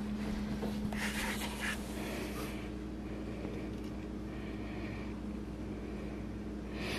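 Quiet kitchen room tone: a steady low hum, with faint rustling and light handling noises about a second in as fresh dill is laid over a raw trout in a glass baking dish.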